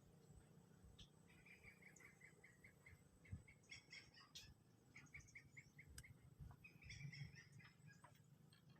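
Faint animal calls: several runs of short, rapid chirping notes at about six a second, each run lasting one to two seconds.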